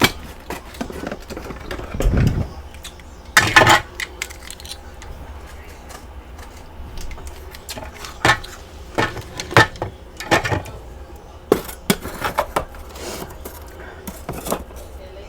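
Close-miked mouth crunching of large chunks of freezer frost, irregular loud crunches with pauses between them and one especially loud crunch about three and a half seconds in.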